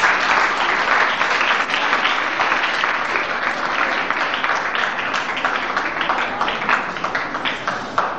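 Large audience of schoolgirls applauding: many hands clapping in a dense patter that thins out and stops near the end.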